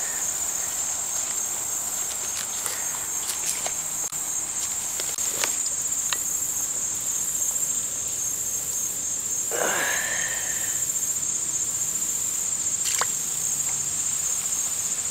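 A steady, high-pitched chorus of insects. A few faint clicks are heard, and a short rising vocal sound comes about ten seconds in.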